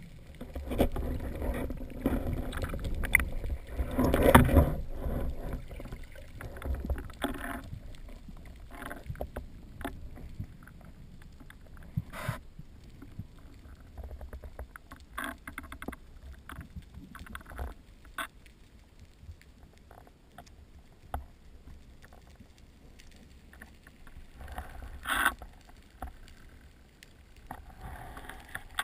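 Underwater water noise on a spearfisher's camera as the diver swims down: loud rushing and surging water for the first several seconds, then a quieter stretch broken by scattered sharp clicks, with one louder crackling burst near the end.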